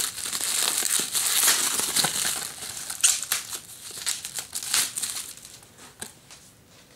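Plastic bubble wrap crinkling and crackling as it is pulled off a Blu-ray case. The crinkling is dense and loud for the first few seconds, then thins out to a few small crackles and fades near the end.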